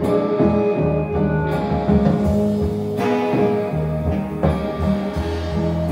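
An instrumental passage of a song with guitar and bass notes and a few sharp percussive hits, played back through Xavian Giulietta floor-standing loudspeakers.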